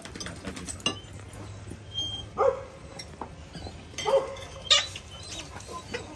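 Dogs giving short whines and yips, three or four brief calls a second or two apart, begging for food at the table. A few light clicks come between the calls.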